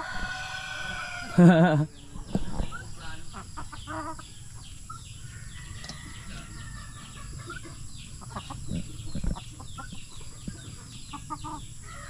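Chickens clucking in a long run of short, quick notes, with a rooster crowing. A short loud call stands out about a second and a half in.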